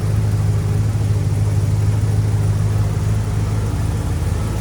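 The 1966 Chevrolet Impala Super Sport's 327 V8 idling steadily.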